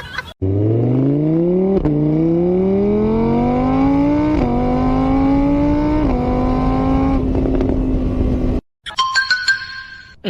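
A car engine accelerating hard through the gears: its pitch climbs, drops back at each of three shifts, and climbs again before it cuts off suddenly.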